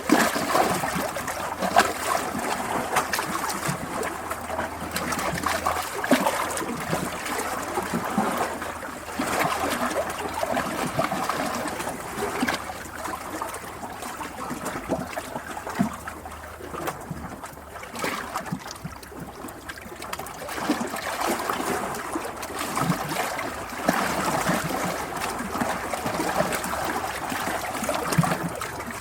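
Water trickling and splashing in a steady flow, with many small splashes and a level that swells and eases every few seconds.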